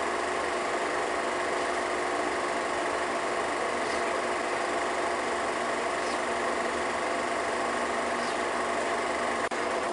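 Home-movie film projector running steadily, its motor and film mechanism giving a constant mechanical hum with several steady tones.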